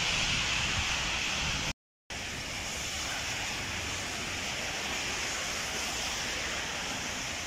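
Heavy rain pouring down with gusting wind buffeting the microphone, a steady hiss with a low rumble beneath. It breaks off in a brief silence about two seconds in, then carries on unchanged.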